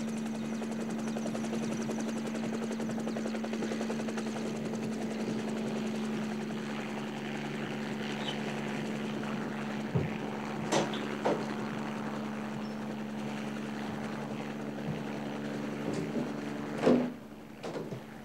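A steady, droning mechanical hum, with several sharp knocks in the second half, the loudest near the end.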